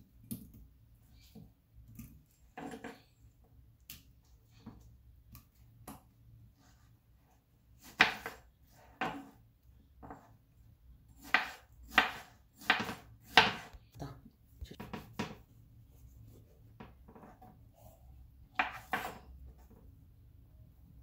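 Kitchen knife slicing through watermelon and knocking on a wooden cutting board: irregular sharp taps, bunched into a busy run through the middle.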